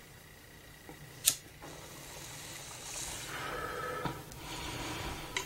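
A hit drawn from a small glass pipe: a sharp click about a second in, then a steady airy hiss of drawn breath and flame for about four seconds, a little louder near the end.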